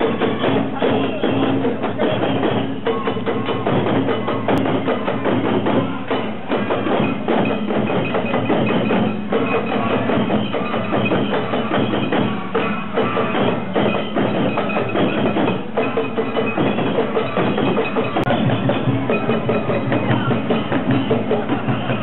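Oeshiki festival procession music: many uchiwa-daiko fan drums struck in a fast, steady rhythm, with bells ringing over them.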